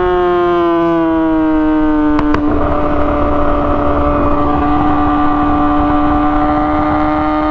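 2017 Yamaha R6's inline-four through an Akrapovic exhaust, running at high revs with a high, steady note. The pitch eases slightly over the first two seconds, a couple of sharp clicks come at about two seconds, and then the note holds steady while a rushing noise builds.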